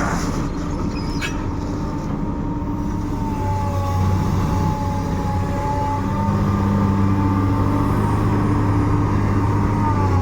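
Komatsu PC200-8 hydraulic excavator's diesel engine running, working harder from about three seconds in and again near six seconds, with a high, slightly wavering whine over the engine note.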